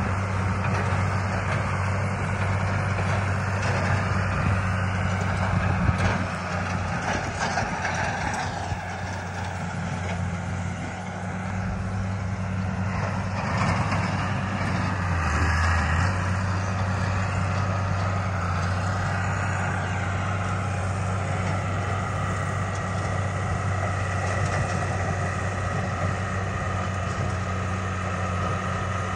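John Deere tractor running steadily while driving a rotary cutter (bush hog) through the grass and brush, a constant low engine drone.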